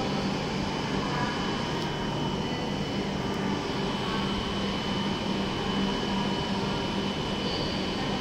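Steady hum and whir of stationary W7 series Shinkansen trains idling at the platform, their onboard equipment and air conditioning running, with a faint steady high whine over it.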